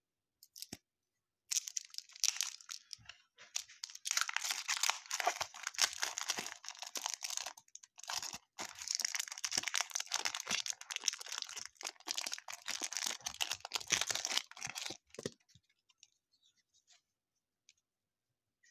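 Baseball card pack wrapper being torn open and crinkled by hand: a crackly tearing and rustling in a few stretches lasting about thirteen seconds, then it stops.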